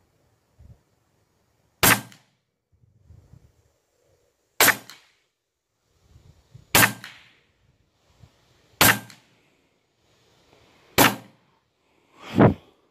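Huben K1 semi-automatic PCP air rifle firing 28.5-grain Varmint Knockers slugs at about 1040 fps: five sharp shots about two seconds apart, then a duller thump near the end.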